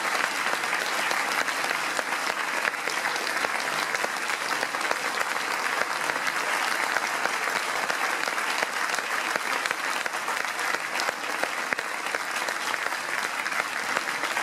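Concert hall audience applauding steadily, dense continuous clapping.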